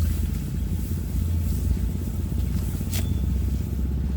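A small engine running steadily with a low, even rumble, with two faint clicks, about three seconds apart.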